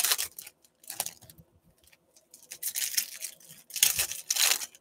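Foil wrappers of Topps baseball card packs being torn open and crinkled by hand in a few short rips, the longest and loudest near the end.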